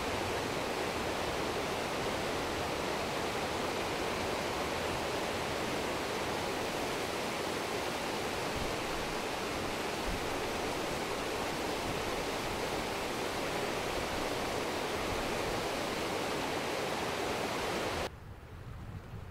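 River water flowing in a steady, full rush. The sound drops off abruptly near the end to a much quieter background.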